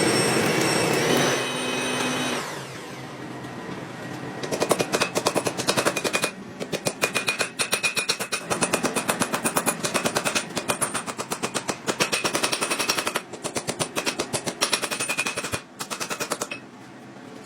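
Rapid mechanical hammering of steel, like a forging power hammer, at about five blows a second in long runs with short breaks, the metal ringing between blows. A motor-like hum comes first and fades within the first few seconds.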